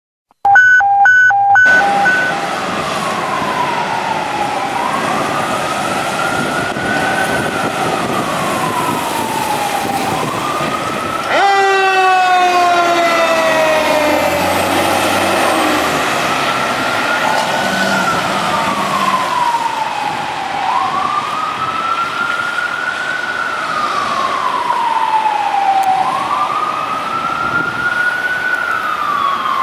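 Fire truck sirens on an emergency response. It opens with a few short horn blasts, then an electronic siren wails slowly up and down. About eleven seconds in, a Federal Q mechanical siren cuts in loudly and slowly winds down in pitch under the wail.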